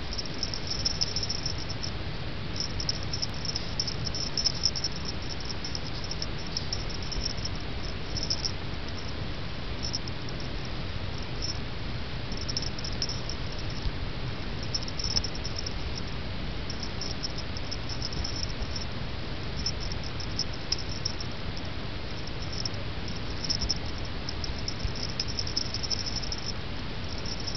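Insects chirping: high, rapid trills in repeated bursts of a second or two, over a steady low hum.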